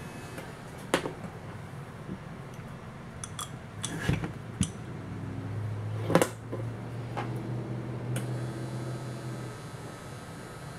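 A few sharp clicks and knocks, the loudest about six seconds in, with a low steady hum for several seconds in the middle.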